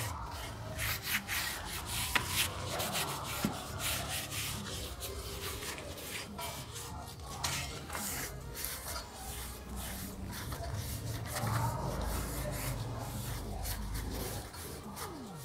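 Cloth dampened with paint thinner rubbing over a bare motorcycle alloy wheel rim in quick, irregular wiping strokes, cleaning off the dust left from grinding before painting.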